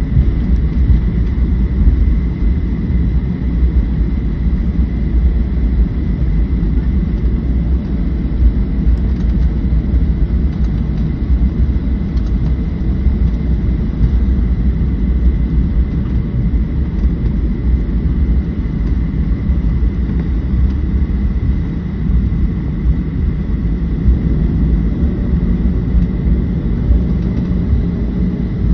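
Cabin noise aboard a Boeing 737-700 after departure: its CFM56-7B jet engines and the rushing air make a loud, steady low rumble, with a thin steady high tone above it.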